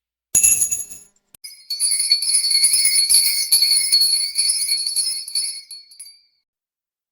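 Sleigh bells jingling: a short shake about a third of a second in, then steady shaking for about five seconds that fades out and stops.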